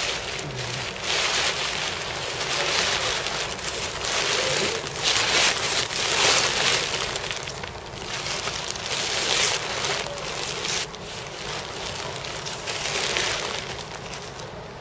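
Plastic sack liner rustling and crinkling as it is handled close to the microphone, in irregular swells of noise.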